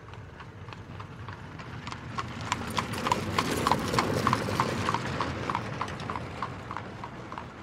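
Horse hooves clip-clopping at a steady trot, about three steps a second, over a low rumble of cart wheels. The sound grows louder to the middle and fades away, like a horse cart passing by.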